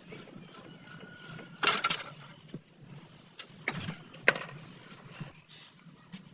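Metal tools and motorcycle shock absorber parts clinking as they are handled: a short rattling clatter about two seconds in, then two sharp metallic knocks a half-second apart around the middle.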